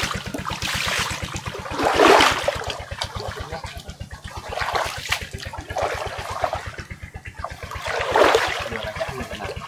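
Water splashing and pouring in surges a few seconds apart, over a steady, rapid low throbbing.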